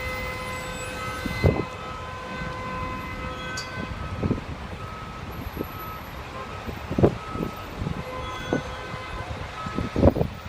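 Stalled city traffic in snow: a steady engine hum with short beeps repeating about once a second, and low thumps now and then.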